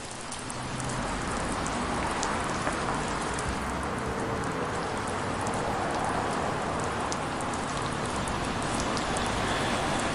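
Light rain sound effect: a steady hiss of rain with scattered faint drop ticks, starting suddenly out of silence.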